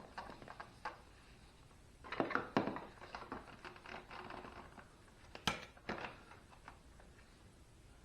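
Hands working on motorcycle parts and wiring: a cluster of knocks and rustles about two seconds in, a single sharp click about halfway through, and a few fainter taps after it.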